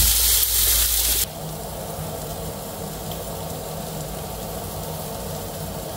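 Rice-flour-coated beef fillets sizzling in a frying pan. About a second in, the sizzle drops abruptly to a quieter steady hiss with a faint low hum under it.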